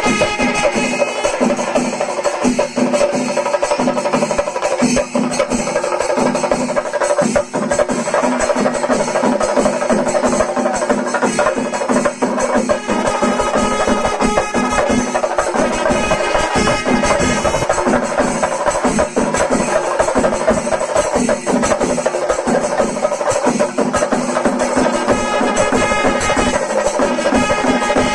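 Kerala chenda melam: a temple percussion ensemble of chenda drums and cymbals beating a fast, dense rhythm, with steady sustained tones from wind instruments running over it.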